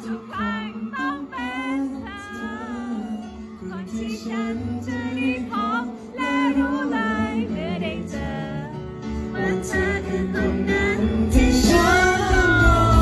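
A female voice singing a melody over band accompaniment, with the backing growing fuller and louder near the end.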